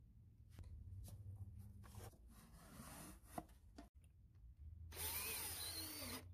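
Cordless drill driver running for about a second, near the end, driving a screw through a metal drawer slide into the cabinet's wooden side; its whine rises and then drops in pitch as the screw runs in. Before it, light knocks and rubbing from handling the panels.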